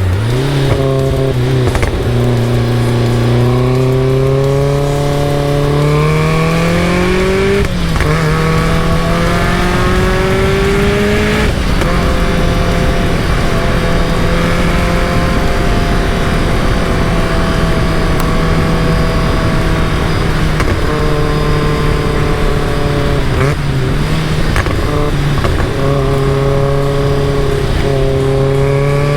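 Caterham Super Seven's engine under load, its note climbing through the gears with a sharp drop in pitch at each upshift, three times in the first dozen seconds. It then holds a steady note at cruising speed, dips briefly a little past twenty seconds in, and climbs again near the end.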